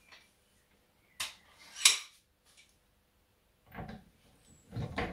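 Metal tool clinks as a long-handled wrench with a 21 mm socket is fitted onto a car's wheel nuts: a few separate clicks, the loudest a sharp clank about two seconds in, then duller knocks near the end.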